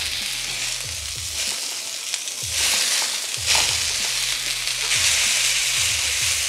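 Rice noodles and vegetables stir-frying in a hot wok: a steady sizzle that swells and eases roughly once a second as they are stirred.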